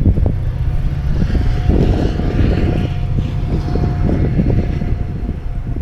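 A steady engine drone with a held whine through most of the stretch, under low wind rumble on the microphone.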